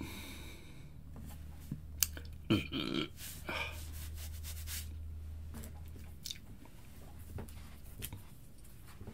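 A man's small mouth and throat noises in a silent pause: a few clicks and lip smacks and a brief throaty sound between about two and four seconds in. Under them runs a low steady hum that fades out about six seconds in.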